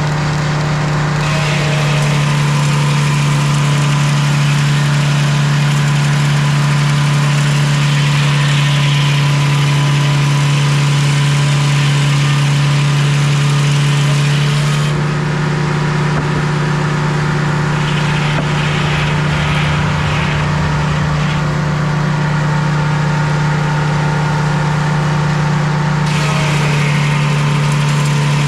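Portable sawmill's engine running steadily while its blade cuts through a maple log, the cutting hiss starting about a second in and stopping about halfway. The hiss starts again near the end as the next cut begins.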